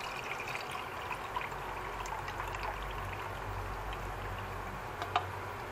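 Brine trickling and pouring from a tipped-up can of mackerel into a bowl, with one short tap about five seconds in.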